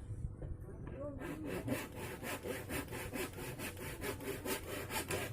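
Fast rhythmic scraping strokes, about four to five a second, starting about a second in.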